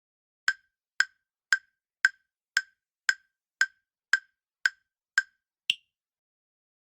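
Quiz countdown-timer tick sound effect: eleven evenly spaced ticks, about two a second, the last one higher-pitched than the rest.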